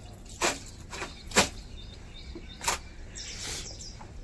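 Wet clothes being handled and shaken out during hand-washing: three short swishes of wet cloth, the loudest about a second and a half in.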